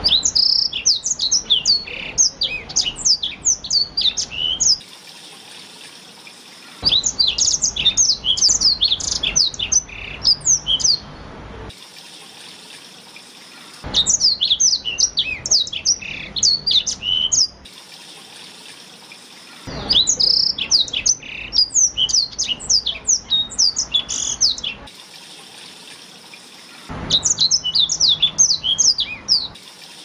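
Black-throated canary (blackthroat) singing in five bouts of rapid, high twittering notes, each a few seconds long with pauses of about two seconds between them. This is a master song meant for tutoring canaries.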